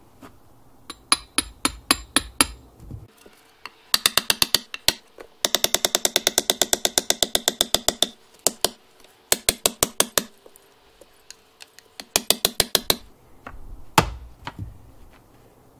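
Claw hammer blows driving a short metal pipe into the ground as an anchor socket for a gate's cane bolt, at times through a wooden board laid over the pipe. The blows come in quick runs with a metallic ring, fastest at about eight a second midway, and end with one heavy single blow near the end.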